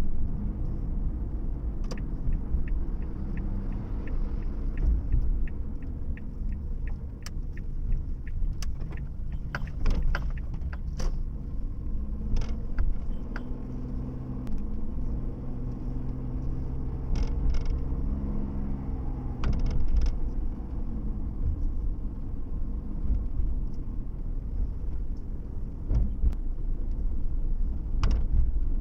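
Car driving, heard from inside: a steady low rumble of road and engine noise, with the engine note shifting slightly midway. From about two seconds in, a run of even ticks at about three a second lasts several seconds. It is typical of a turn-signal indicator.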